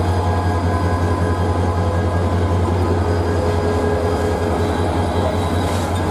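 Bangladesh Railway commuter train heard from inside the carriage: a steady low hum and rumble of the running train, without words.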